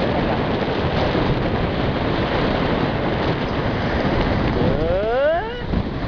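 Shallow surf washing up on a sandy beach, with wind buffeting the microphone, as a steady rushing noise. Near the end a short sound rises in pitch.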